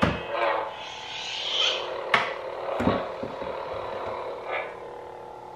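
Replica lightsabers' sound effects from their built-in speakers: a steady electric hum, with a swelling swoosh as a blade is swung about a second and a half in and a couple of sharp clicks around two and three seconds in.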